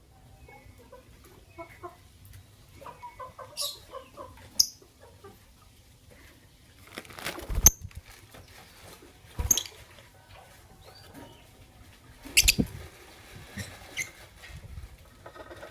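Lovebirds, a white albino and a pastel green Fischer's, chirping in short calls. Several loud rustling knocks come about seven and a half, nine and a half and twelve and a half seconds in.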